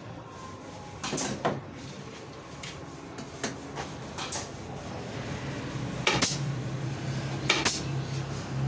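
Wooden frame strips knocking against a wooden workbench as they are handled and set in place, a series of sharp knocks with the strongest near the end. A low steady hum starts about halfway through.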